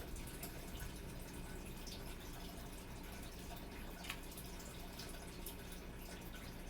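Water in a turtle tank trickling and dripping steadily over a low hum, with a few faint clicks.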